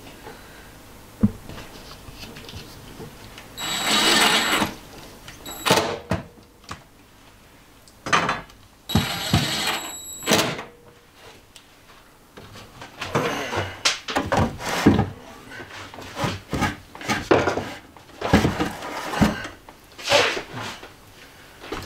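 Bostitch 18V cordless driver running in two bursts of about a second each, driving screws into the bus's ceiling framing. A series of shorter knocks and clatters follows, from handling the cabinet and tools.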